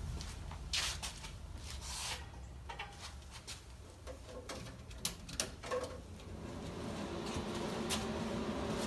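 Scattered light clicks and knocks of equipment being handled on a workbench, about a dozen at uneven intervals, over a low steady hum.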